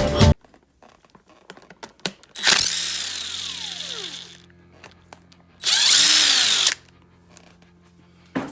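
Handheld power drill/driver running in two bursts. The first lasts about two seconds and winds down in pitch as it stops; the second is a shorter, louder burst about a second long.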